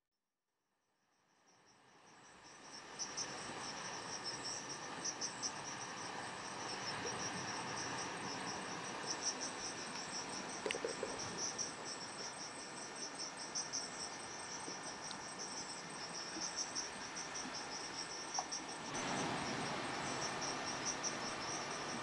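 Crickets chirping in a steady, fast, high-pitched pulsing trill over a background hiss, fading in from silence over the first few seconds. The hiss grows louder about three-quarters of the way through while the chirping goes on.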